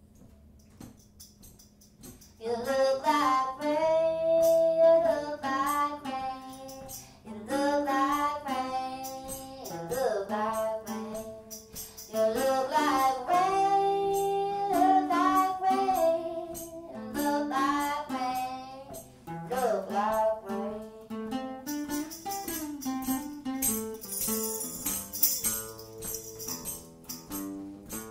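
Live singing with guitar accompaniment, starting about two seconds in with long held notes; a tambourine shakes through the last few seconds.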